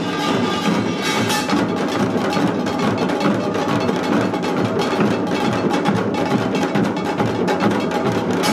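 Korean samul nori percussion ensemble of janggu hourglass drums and buk barrel drums playing together in a fast, dense rhythm.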